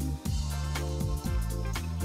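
Background music with a steady beat over a sustained bass line.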